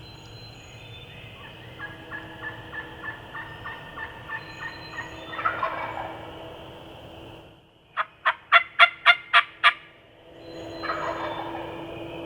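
Wild turkeys calling: a hen yelps a long, even run of about a dozen notes and a gobbler gobbles twice, near the middle and near the end. Between the gobbles comes a much louder, sharper series of seven yelps close by.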